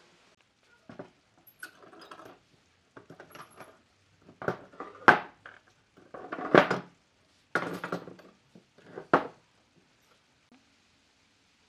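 A series of clattering knocks and clinks from hard objects being handled and set down, about eight over ten seconds, loudest in the middle.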